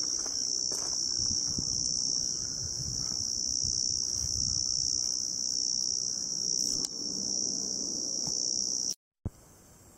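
A steady, high-pitched chorus of summer insects, one unbroken shrill drone, over a faint low rustle; it cuts off suddenly about nine seconds in.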